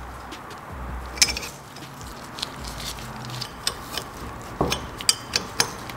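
Steel wrench clicking and tapping against the jammed 12 mm nuts on an engine cylinder stud as a new stud is run in with the double-nut method. Scattered light metallic clicks, with a sharper knock about a second in and a quick run of clicks near the end.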